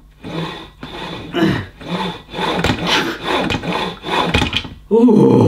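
Knee carriage of a Body Plank ab exerciser sliding up and down its curved metal rail in repeated strokes, a rasping, rubbing sound.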